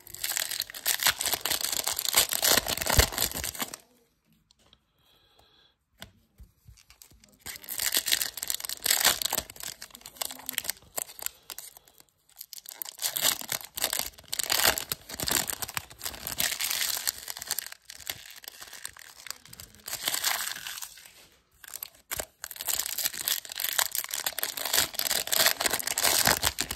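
Foil wrappers of Topps Chrome baseball card packs being torn open and crinkled by hand, in four long bouts of crackling with short pauses between them.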